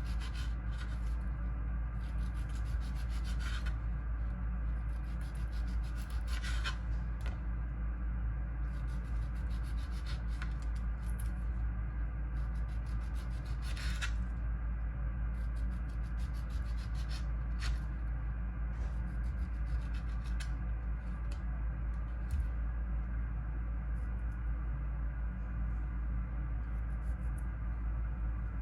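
Repeated rasping, rubbing strokes that come in stretches of a second or a few seconds and then pause, over a steady low hum.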